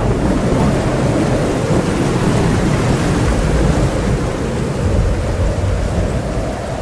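Thunderstorm: heavy rain and wind with a steady low rumble, with no distinct thunderclap standing out.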